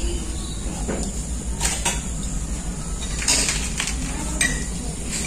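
Steel mason's trowel scraping and clinking as cement mortar is spread and a ceramic floor tile is set: several short scrapes over a steady low hum.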